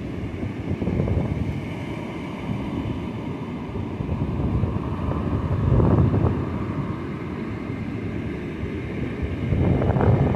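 Strong onshore wind buffeting the microphone over breaking surf, with louder gusts about six seconds in and again near the end.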